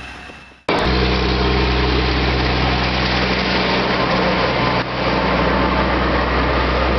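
Heavy machine's diesel engine running steadily with a low, even drone, cutting in suddenly about a second in.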